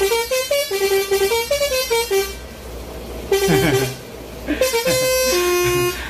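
Lorry's telolet (basuri) musical air horn playing a tune of held notes that step up and down in pitch, with a short break about two seconds in and a few notes sliding downward before the held notes resume.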